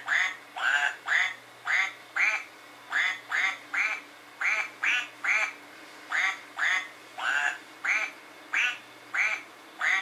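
Plush toy duck quacking over and over, about two quacks a second in an uneven rhythm, the pitch shifting a little from quack to quack.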